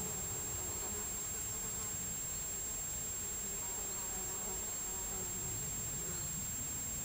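An insect buzzing, its pitch wavering, over a steady hiss and a thin, steady high-pitched whine.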